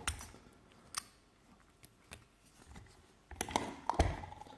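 Small metallic clicks and knocks from handling a picked lock and its picking tools: a few separate clicks, then a quick cluster of clicks and taps about three seconds in.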